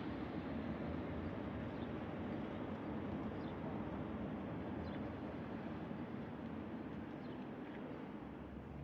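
Steady outdoor background noise with a low rumble, with a few faint, short bird chirps every second or two.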